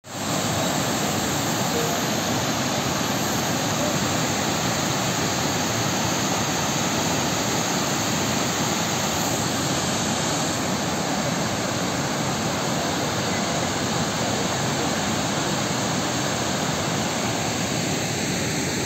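Muddy floodwater overflowing a dam's spillway and churning at its foot: a steady, loud rushing.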